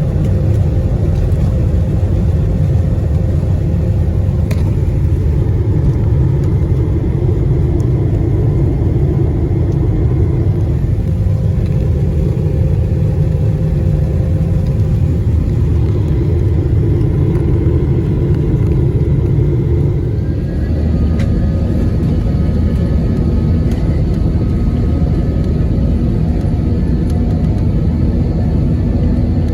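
Steady low rumble inside the cabin of a Boeing 737-700 on the ground. About twenty seconds in, several thin whining tones join the rumble.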